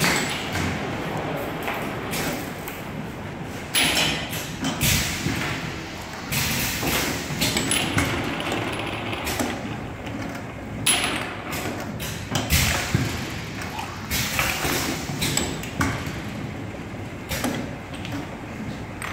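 Six-head automatic liquid filling machine at work: repeated short hisses from its air-driven filling heads every second or two, with thumps and glass jars clinking on the conveyor.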